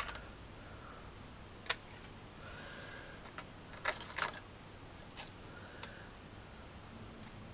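Light plastic clicks and crackles from a squeeze bottle being squeezed, with a small cluster of sharper clicks about four seconds in, and faint short hisses as watered-down PVA glue spurts out onto gravel.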